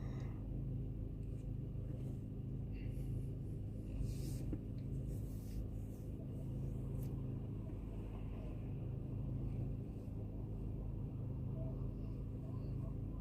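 Steady low car engine and road rumble heard from inside the vehicle's cabin, with a few faint clicks.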